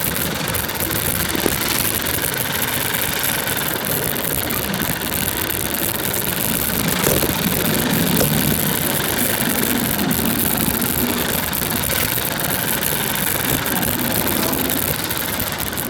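A 100cc four-stroke moped scooter engine running steadily, swelling a little louder around eight seconds in.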